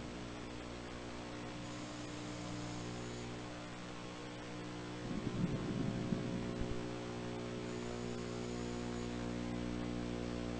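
Underwater recording of a scuba diver's regulator breathing over a steady low hum: a faint inhalation hiss about two seconds in and again near the end, and a rumbling burst of exhaled bubbles about halfway through.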